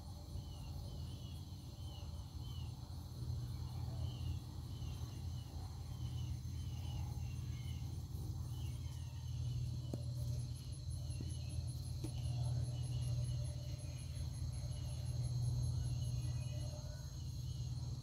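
Insects trilling steadily in several high tones, with a fast pulsing trill joining about halfway through, over a steady low rumble. Short repeated chirps sound through the first half.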